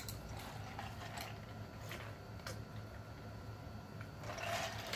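Quiet chewing of crawfish, with faint scattered small clicks from the mouth, then a short spell of drinking from a glass jar near the end.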